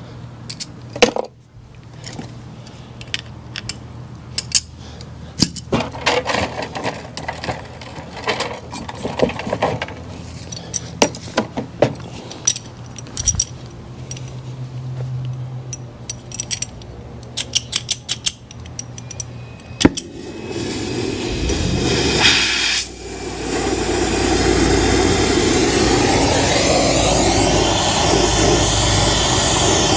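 Scattered clicks and metallic clinks of brazing gear being handled. About 20 seconds in, gas begins to hiss. A couple of seconds later the brazing torch is lit and burns with a loud, steady rushing flame noise, ready to heat the copper suction line.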